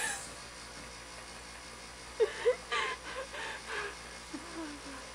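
A person's voice making a few short, squeaky sounds about two seconds in, then a brief falling tone, over otherwise quiet room tone.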